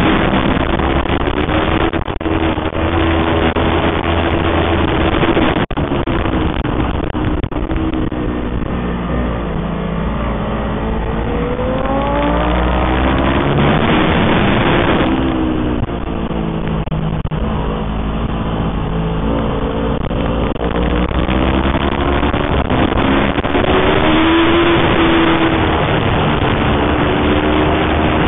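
Aprilia RSV4 superbike's V4 engine running at racing revs, its pitch rising and falling through the lap, with strong wind rush over the bike-mounted microphone.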